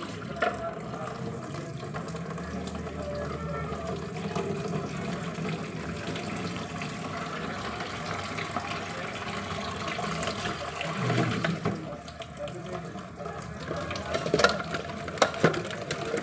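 Kitchen tap running into a sink as a plastic bowl is rinsed, water splashing steadily. Near the end come a few sharp knocks.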